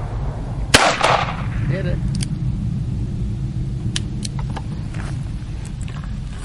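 A single shot from a Smith & Wesson Model 34 Kit Gun, a .22 LR revolver, about a second in, with a short echo after it. A few much fainter sharp clicks follow over a steady low rumble.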